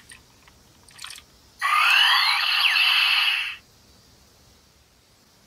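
Break Gunner toy gun's built-in speaker playing an electronic sound effect for about two seconds, synthesized tones with sweeping pitch glides. It comes just after a faint plastic click about a second in.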